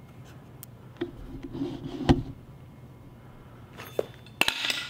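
Handling noises from the Tornador cleaning gun and its air hose: a low scraping rumble ending in a sharp knock about two seconds in, a single click near four seconds, then a brief metallic clatter near the end.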